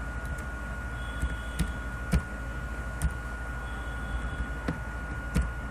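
Computer keyboard keystrokes, a handful of separate clicks spaced about a second apart, over a steady low hum with a faint steady high tone.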